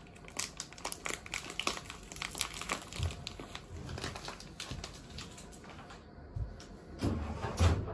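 Irregular light clicks and rustling of things being handled, with a soft knock about three seconds in and a louder rustle ending in a thump near the end.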